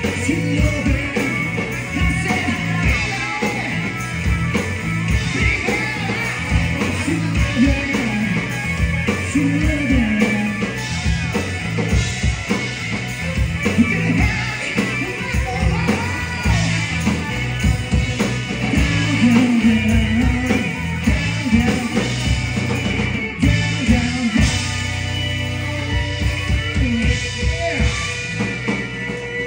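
Live rock band playing: electric guitar, bass guitar and drum kit with a lead singer, the drums keeping a steady beat.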